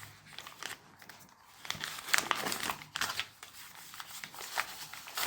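Postal packaging being torn open and crinkled by hand, irregular rustling and crackling that gets busier about two seconds in.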